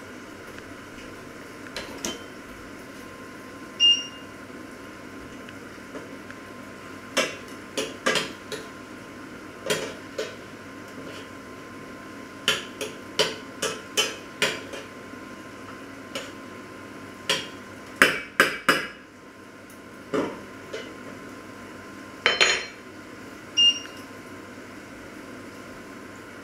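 Metal pots, pan lids and utensils knocking and clinking on a stovetop: scattered sharp clacks, several in quick clusters, with two brief ringing pings, over a faint steady hum.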